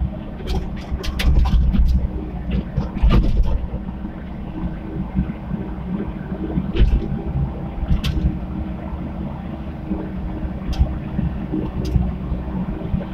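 Komatsu PC75 mini excavator's diesel engine running steadily, with sharp metallic clanks: several in the first few seconds and a few single ones later on.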